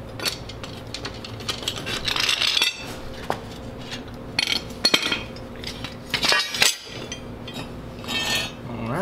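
Steel leaves of a leaf spring clinking and scraping against each other and on a concrete floor as the spring is split apart, with short bursts of metallic clatter and sharp clinks.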